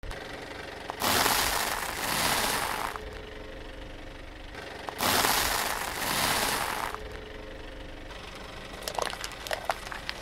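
A car tyre rolling slowly over a block of dry instant noodles, crushing it with crunching and crackling in two long bursts of about two seconds each. Near the end come many short, sharp cracks and clicks as the tyre rolls on.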